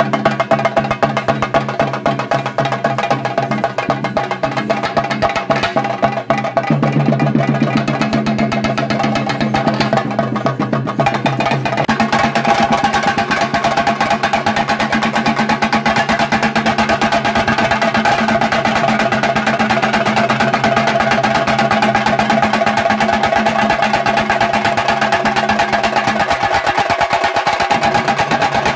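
Chenda drum ensemble beating fast, dense stick strokes, with steady ringing tones beneath. The drumming grows fuller about seven seconds in and again from about twelve seconds on.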